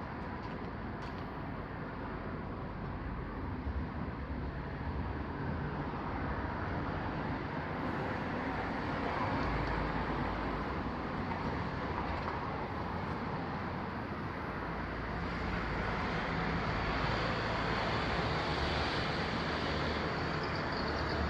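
Steady road traffic noise, a continuous hum that swells slightly louder toward the end.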